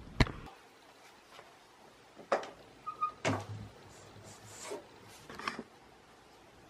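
A sharp click as a hand handles the camera. Then a quiet room with a few faint, scattered knocks and rustles.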